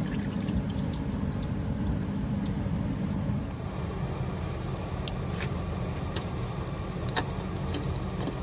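Engine coolant trickling and splashing out of an open thermostat housing as the thermostat is pulled, with a few light clicks of parts being handled.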